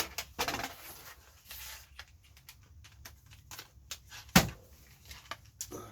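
Small clicks and rattles of metal parts and screws being handled while a cassette deck stereo is taken apart, with one sharp knock a little over four seconds in.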